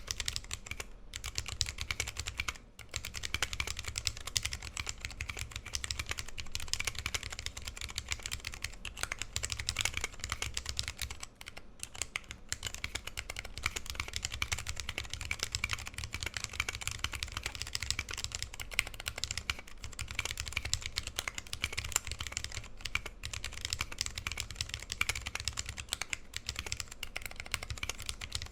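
Continuous fast typing on a 60% mechanical keyboard with lubed vintage brown Alps switches and PBT keycaps: a dense stream of key clicks and keystrokes with brief pauses.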